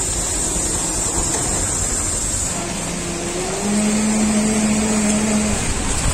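Outdoor street ambience with a steady high hiss and the low running of a motor vehicle's engine. About three seconds in, the engine hum grows louder, rises a little in pitch and holds for about two seconds before fading.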